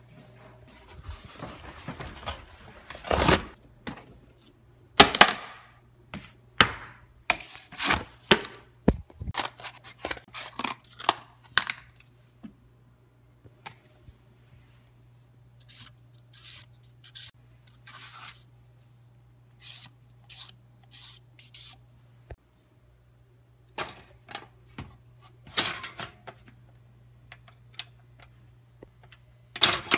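Scattered knocks, clicks and rustling of things being handled on a kitchen counter, over a low steady hum.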